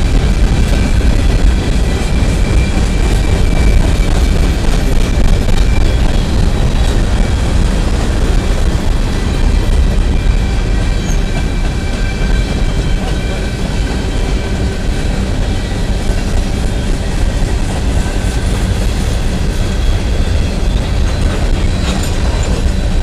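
Empty steel coal hopper cars of a freight train rolling past: a steady, loud low rumble of wheels on the rails, with faint thin high tones running above it.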